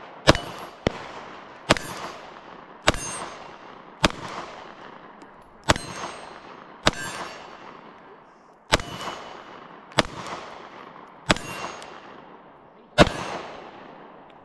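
Glock 43X MOS 9mm pistol firing about eleven single shots at a slow, uneven pace, roughly one every second or so. Each crack is followed by a long echo dying away.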